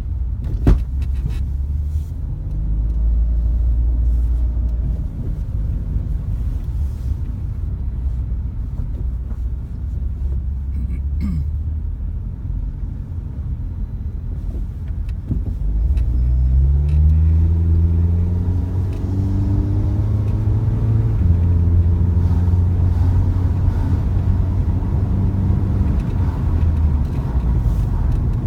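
Car driving, with steady low road rumble and engine hum; the engine rises in pitch about 16 seconds in as it speeds up. A single sharp knock comes about a second in, the suspension knock laid to the car's ASOMI coilovers with SS20 Gold shock absorbers.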